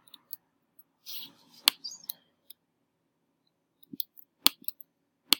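Computer keyboard keys and mouse buttons clicking: a few sharp, irregularly spaced clicks as a value is typed into a spreadsheet-style table and the cursor is moved to the next cell.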